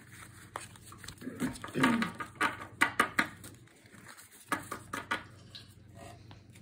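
Trading cards being handled and laid down on a wooden table: a string of light, sharp taps and clicks, with a short low vocal sound about two seconds in.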